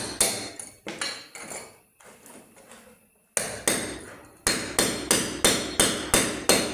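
Repeated sharp hammer-like strikes, each ringing briefly. They pause for about a second and a half midway, then resume as a steady run of about three strikes a second.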